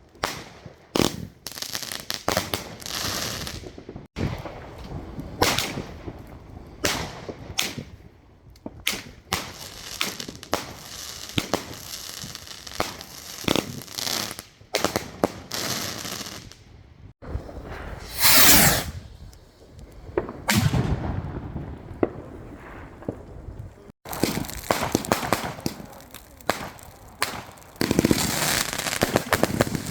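Consumer fireworks going off: repeated sharp bangs with crackling bursts between them, and a loud sweep falling in pitch about two-thirds of the way through.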